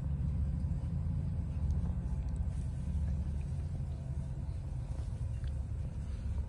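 A steady low rumble of wind buffeting the microphone.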